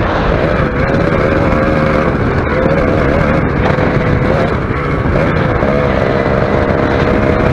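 Suzuki Shogun's two-stroke motorcycle engine running under way, its pitch dipping and rising with the throttle and holding higher near the end.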